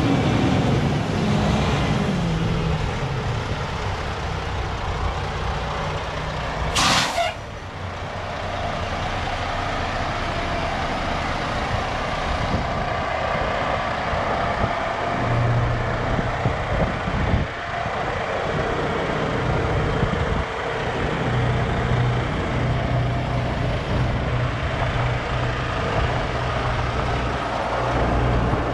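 Diesel engine of a 2013 International ProStar semi tractor idling. The engine speed falls back over the first couple of seconds, and a short, loud hiss of air from the truck's air brake system comes about seven seconds in.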